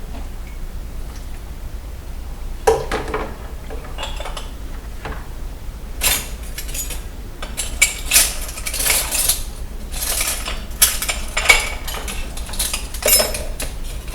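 Dishes and cutlery clinking and clattering as they are handled and set down: a string of sharp knocks that starts a few seconds in and is busiest in the second half.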